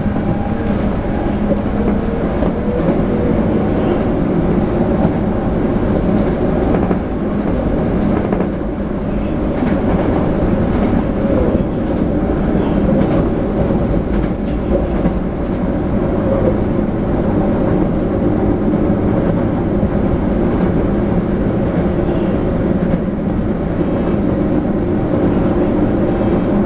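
Running noise heard inside a Toei 5300 series subway car as it travels at speed: a steady rumble of wheels on rail and the car body, with a faint steady whine from the traction equipment.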